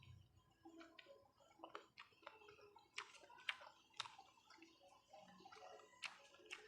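Close-miked eating: soft wet chewing and mouth sounds with scattered sharp clicks, the loudest a little after three and four seconds in.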